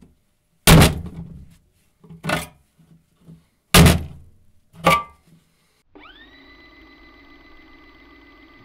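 Four hard impact thunks, a second or so apart, typical of a folding knife being struck or chopped hard into a test material. They are followed about six seconds in by a faint, steady electronic hum with a fixed pitch.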